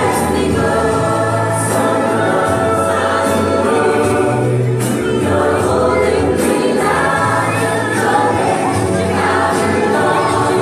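Gospel song with group singing over held bass notes and a steady percussion beat. It is played through loudspeakers as accompaniment to a dance.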